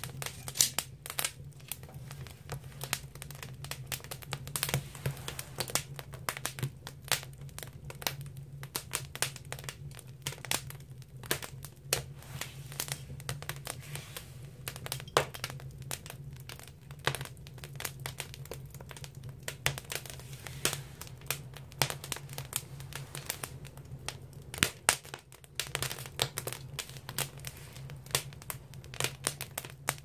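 Firewood burning in an agungi, a traditional Korean wood-fired firebox: constant irregular crackling and sharp pops over a steady low hum.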